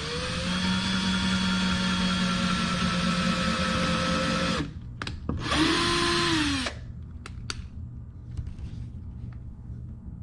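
Power drill pre-drilling pilot holes in wood: one run of nearly five seconds that spins up and holds steady, then a shorter run about a second later that winds down at the end. A few light clicks follow.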